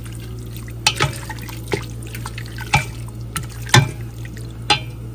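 Wooden spoon stirring chopped duck meat simmering in liquid in a pot: wet sloshing, with about seven sharp knocks of the spoon against the pot, over a steady low hum.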